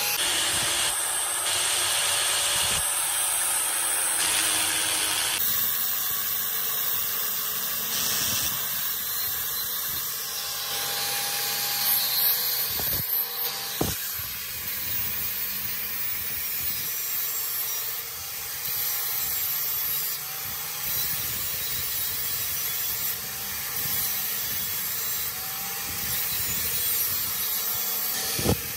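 Angle grinder with a cutting disc running and cutting into a steel 14-tooth chain sprocket held in a vise: a steady grinding hiss over a faint, wavering motor whine, with a couple of sharp clicks about halfway through.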